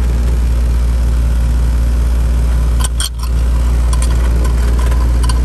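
2011 ICP 3-ton heat pump outdoor unit running with a steady low hum from its compressor and condenser fan, freshly restarted. A few light metallic clicks, about three seconds in and again near the end, come from the suction service-valve cap and the gauge adapter being handled.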